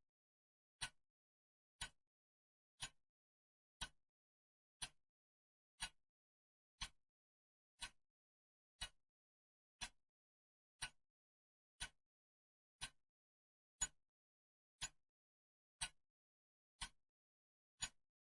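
Clock ticking, one short, sharp tick every second, with silence between the ticks.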